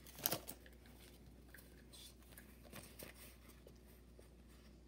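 Faint handling noise of Pokémon trading cards: a short burst of rustling and clicks just after the start, then scattered light ticks as the cards are handled.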